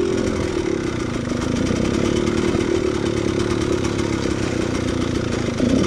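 Dirt bike engine running at steady low revs while riding over a rocky trail.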